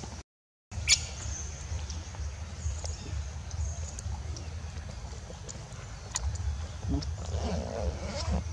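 Outdoor forest ambience: a low steady rumble and a thin high hiss, with scattered small clicks, broken by about half a second of dead silence near the start.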